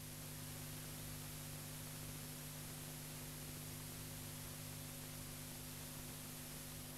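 Steady hiss with a low electrical hum underneath: the blank soundtrack of an old 16 mm film transferred to video.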